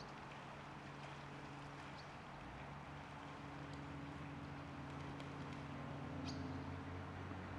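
Low, steady drone of a distant engine, growing slightly louder over the second half, over a constant outdoor hiss. A few faint, short, high chirps sound now and then.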